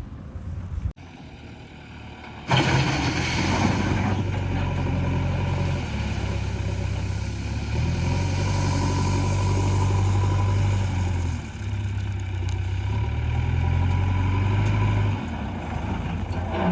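Heavy diesel engine of a backhoe loader working, its pitch stepping up and down as the load changes. It comes in suddenly and loudly about two and a half seconds in, with a burst of rushing noise.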